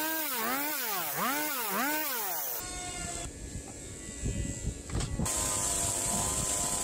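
Stihl chainsaw revving up and down about twice a second, then running steadily under load as it cuts.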